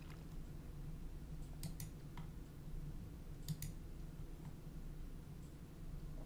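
Computer mouse button clicking: two quick press-and-release clicks about a second and a half in, and two more about three and a half seconds in, over a faint steady low hum.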